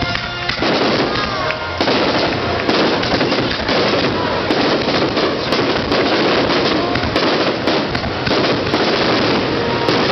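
Aerial fireworks crackling in a dense, continuous stream of rapid pops, thickening about half a second in.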